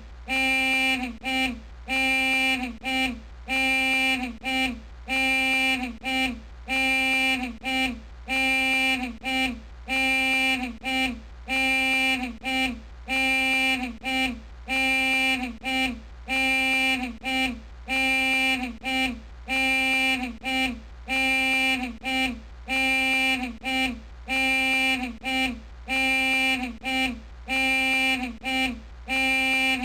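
A horn-like pitched tone sounding in short blasts, about two a second, in a strict repeating pattern of longer and shorter pulses.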